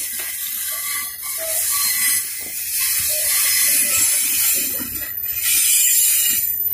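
Freight train's hopper cars rolling past, their steel wheels running on the rails with a continuous high metallic hiss and brief squealing tones.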